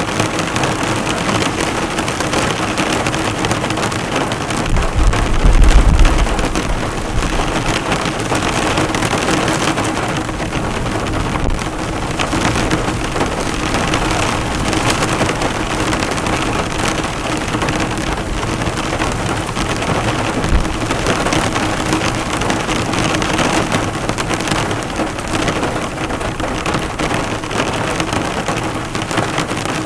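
Heavy rain pelting a car, the drops bouncing off the hood in a dense, steady patter. A brief low rumble rises about five seconds in and fades about two seconds later.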